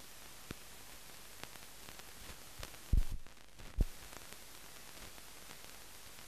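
Steady hiss of a blank soundtrack from a silent film transfer, with scattered faint clicks and two loud low thumps about three seconds in, just under a second apart.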